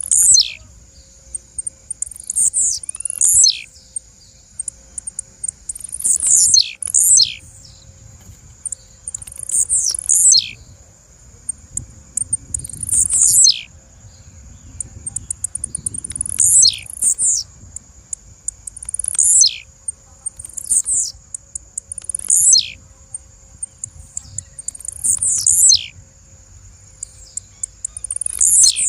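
Blue-black grassquits (tiziu) singing: high, thin notes that slide steeply down in pitch, coming singly or in twos and threes every few seconds, with quick high chips in between.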